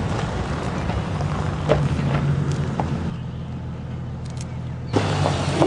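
Vehicle engine and road noise heard from inside the cabin, a steady low hum. The higher noise eases off about three seconds in and picks up again near the end.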